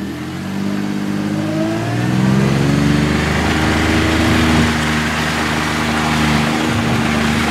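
Engine of an off-road vehicle running under way, climbing in pitch as it speeds up over the first couple of seconds, then holding a steady note.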